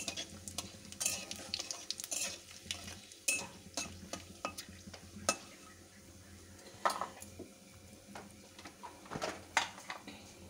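A spatula stirring whole spices frying in hot oil in a kadai, with irregular scrapes and clinks against the pan over a soft, steady sizzle: the spices are being tempered in the oil.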